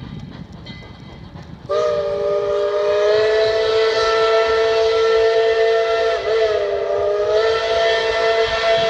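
Tweetsie Railroad's steam locomotive #12 blowing its chime steam whistle: one long blast of several notes sounding together, starting suddenly about two seconds in and held to the end, with a brief dip and wobble in pitch partway through.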